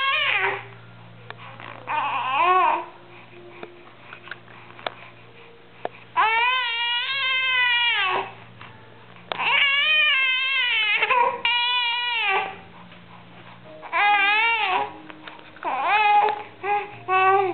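Baby vocalizing in a string of long, high-pitched calls with rising and falling pitch, the longest about two seconds, with quiet pauses between them.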